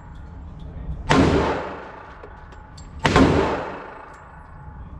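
Two pistol shots about two seconds apart, each followed by a long echo in the enclosed indoor range.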